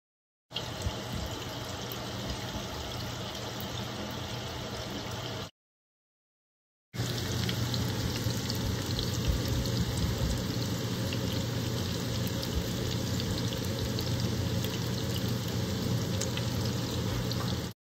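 Batter-coated onion fritters frying in hot oil in a cast-iron skillet: a steady sizzle full of small crackles. It cuts off for a second or so about five seconds in, then resumes a little louder.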